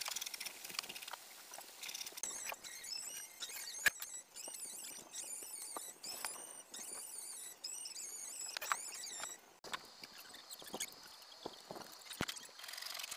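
Repeated high-pitched squeaky chirps, with a few sharp knocks as plywood speaker-box panels are handled and fixed.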